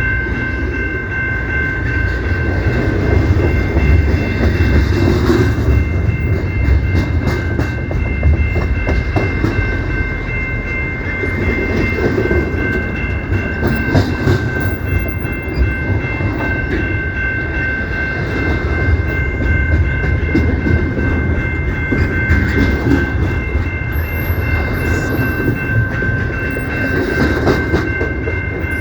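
CPKC freight train rolling past, with a heavy low rumble and uneven clatter of wheels over the rail joints. A steady high-pitched whine runs through it without a break.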